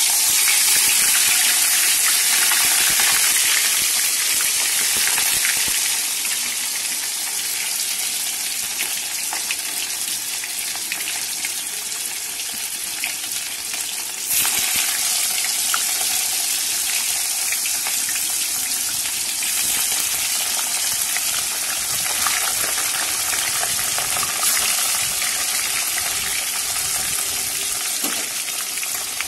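Amudi fish frying in hot oil in a karai, a steady loud sizzle. It is loudest as the fish first go into the oil, eases, then flares up again about halfway through as another fish is added.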